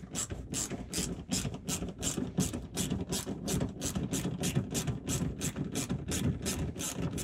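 Small hand ratchet with a socket on an extension backing out a 10 mm bolt, its pawl clicking in an even rhythm of about four strokes a second.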